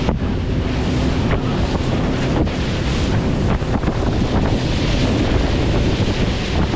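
Strong wind buffeting the microphone over water rushing along the hull of a small fishing boat under way, with a faint steady hum beneath.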